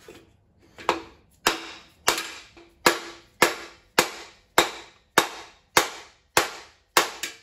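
A mallet striking a wooden block set against a rust-seized piston in a Ford 4.6L DOHC engine block, about a dozen sharp knocks a little under two a second. They are the blows driving the piston out of its bore, where it and its rings have rusted in.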